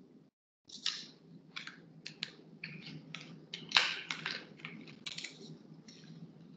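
Typing on a computer keyboard: irregular key clicks, several a second, with one louder click about four seconds in, over a low steady hum.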